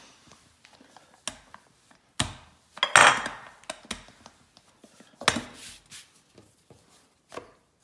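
Rolling pin working pizza dough on a countertop: a few separate knocks and short rolling rubs, the loudest about three seconds in.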